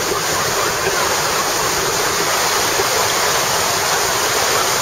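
Water rushing steadily over a river weir, a continuous white-water roar of churning water.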